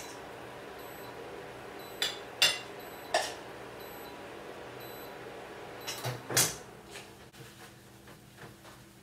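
A metal spoon clinking a few times against a non-stick frying pan and plate as vegetables are spooned out, then a louder knock about six seconds in as the pan is set down on the worktop, followed by light taps while the food is arranged. A steady low hum runs underneath until the knock.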